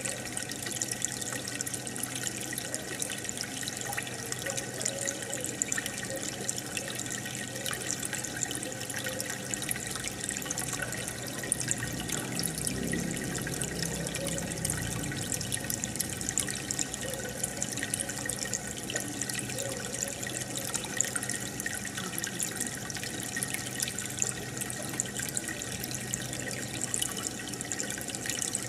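Aquarium water bubbling and trickling steadily from an air stone and filter, a continuous fizzing splash with a faint low hum underneath.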